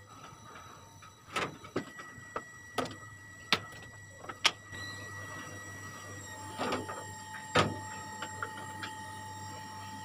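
Light clicks and knocks of a washing machine's power cord being handled and its plug pushed into a wall socket, the sharpest click about seven and a half seconds in. A faint steady tone comes in around six seconds and holds.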